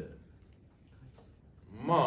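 A pause in a man's speech through a handheld microphone: his voice trails off, then near silence with faint room tone, and speech starts again with a drawn-out "ma" near the end.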